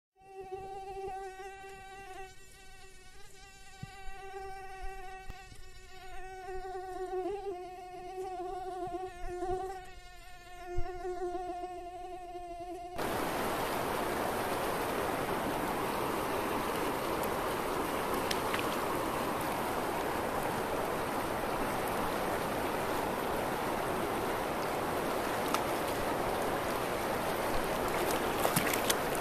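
A buzzing mosquito sound effect, a wavering whine held near one pitch with overtones. About thirteen seconds in it cuts off suddenly into a steady rushing noise from the river.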